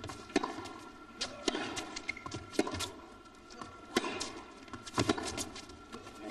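Tennis rally on an indoor court: sharp racquet strikes on the ball and ball bounces on the court, coming about once a second, over a low arena hush.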